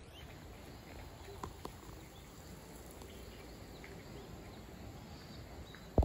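Faint pond-side outdoor ambience: a low steady rumble with a few faint short bird chirps. Two soft ticks about a second and a half in, and a sharp knock at the very end.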